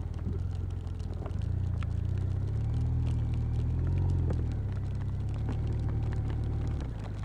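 BMW touring motorcycle engine running at low speed, its note pulling harder from about a second and a half in and easing off near the end, with rain drops ticking on the helmet camera throughout.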